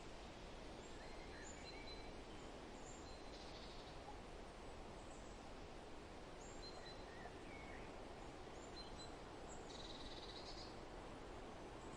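Faint forest birds chirping over a steady rustling hiss of wind, with scattered short high calls and two brief buzzy calls, one about three seconds in and one near the end.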